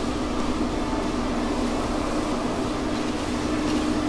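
Forge running: a steady roar with an even low hum.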